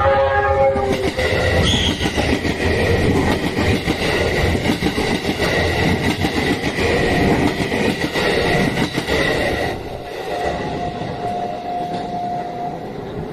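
A train passing at close range over a level crossing: heavy rumble and rapid clatter of wheels on rail joints, with a steady high ring over it. The passing dies away about ten seconds in.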